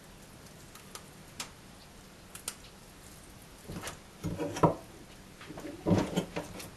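Mejina fish fillets and a kitchen knife handled on a plastic cutting board. A few faint ticks come first; from about four seconds in there is a run of soft knocks and slaps as the fillets and knife are moved about. The loudest knock falls a little past halfway.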